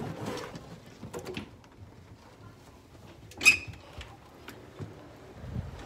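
Scattered light clicks and knocks of movement and handling, with one louder sharp scrape about three and a half seconds in.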